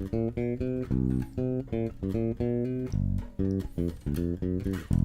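Electric bass guitar played direct into the recorder through its onboard preamp, EQ set flat and the booster not yet switched on: a quick line of short, separated notes.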